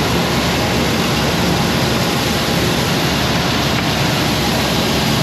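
Shelled corn pouring from a grain truck's opened gate into a running swing auger: a steady rushing noise over a low machine hum.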